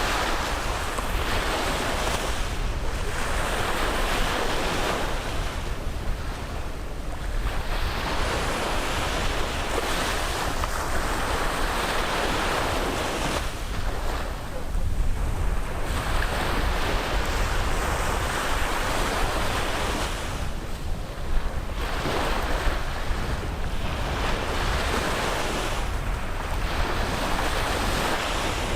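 Sea waves breaking on a beach, the surf swelling and washing in, then easing off, every few seconds.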